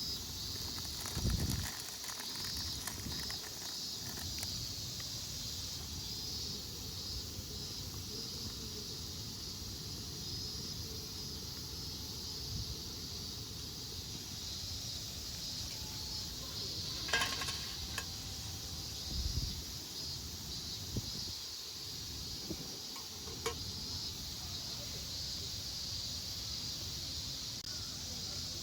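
Insects chirping steadily in a continuous high chorus, with a few faint clicks and low thumps.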